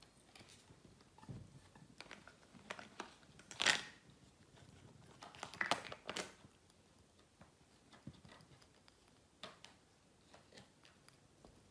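Small plastic toys being grabbed, shifted and mouthed by a baby monkey: scattered faint rustles, knocks and scrapes, the loudest about four seconds in and again around six seconds in.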